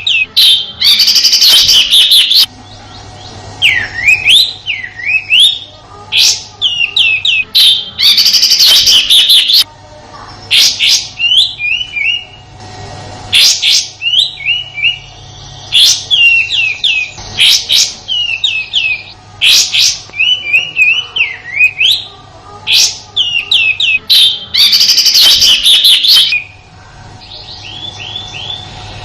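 Kapas tembak songbird singing loud, rapid phrases of short chirps and quick up-and-down whistled sweeps. These are broken by harsh, rattling 'tembakan' bursts, three times over.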